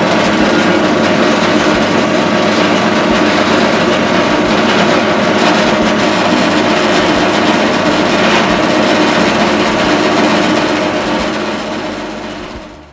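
Electric motor of a meat bandsaw driving its mincer, set up as a sausage filler. It starts abruptly, runs loud and steady, then dies away over the last couple of seconds.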